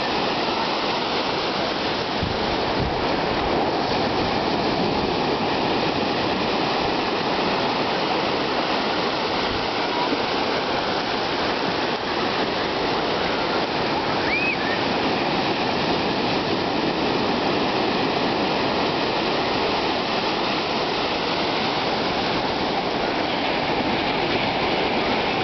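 Ocean surf: waves breaking and washing in, a steady rush of water.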